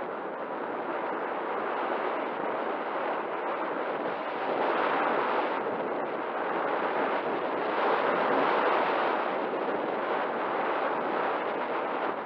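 Rushing airflow over the onboard action camera's microphone on an unpowered Volantex Phoenix 2400 RC glider in flight. It is a steady wind rush that swells about five seconds in and again around eight seconds.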